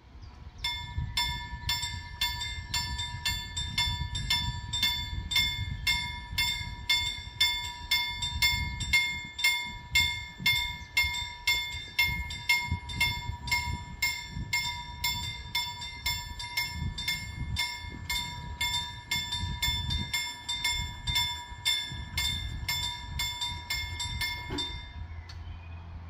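Level-crossing warning bell ringing in steady strikes, about two and a half a second, while the crossing activates and the barriers lower. It stops abruptly about a second before the end, once the barriers are down.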